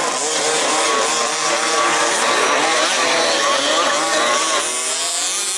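Several 1/5-scale off-road RC cars racing, their small two-stroke petrol engines revving up and down together, with overlapping pitches that rise and fall.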